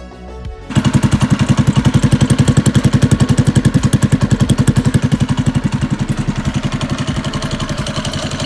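Mini bike's small single-cylinder engine running at a fast, even chug of about ten beats a second, cutting in suddenly about a second in and easing slightly in level near the end. Background music underneath.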